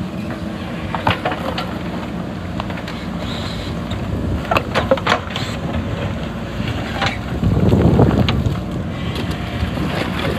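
A steady low rumble with wind noise on the microphone and a few sharp knocks; it swells louder briefly about eight seconds in.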